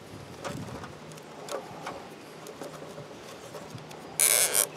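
Nylon zip tie being pulled tight around a wire bundle: a short, rapid ratcheting zip lasting about half a second, a little after four seconds in. Before it come a few light clicks and rustles from the wires being handled.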